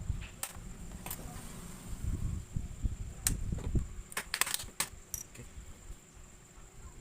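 Sharp clicks and taps of a laptop's plastic casing and parts being handled during disassembly, over low rumble from handling, with a quick cluster of clicks about four seconds in.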